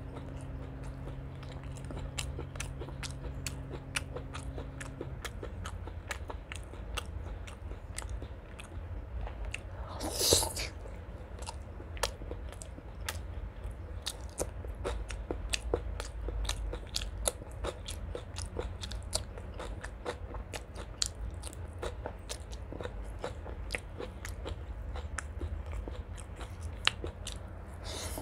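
Close-miked eating: crisp crunching and wet chewing clicks from a person biting and chewing raw green vegetable stems with curry and rice. There is one louder noisy mouth sound of about half a second roughly a third of the way in, and a low steady hum that stops about five seconds in.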